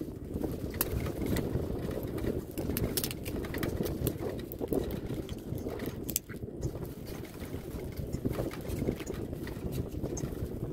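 Wind buffeting the phone's microphone, a steady low rumble that swells and dips, with scattered small clicks and rubs from the phone being handled.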